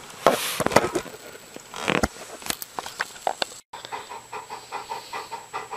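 Rustling and a few sharp knocks, then, after an abrupt cut about two-thirds of the way in, a dog panting rapidly in an even rhythm.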